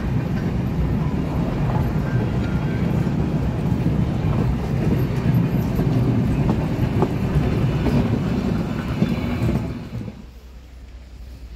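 Vintage passenger coaches rolling past close by: a steady rumble of steel wheels on the rails with a few faint clicks. The sound cuts off suddenly near the end, leaving a much quieter background.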